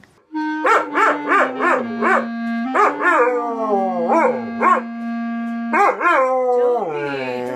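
A dog howling in a run of short rising-and-falling howls, over a steady held tone that steps slowly from one note to the next, like an instrument playing a slow tune that the dog is howling along to.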